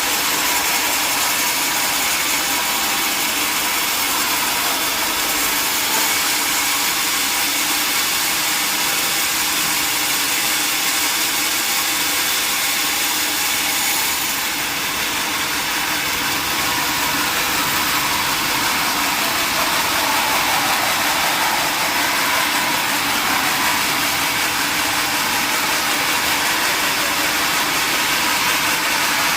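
Sawmill machinery running steadily: a loud, constant mechanical noise with a few steady tones. It eases slightly about halfway through, then picks back up.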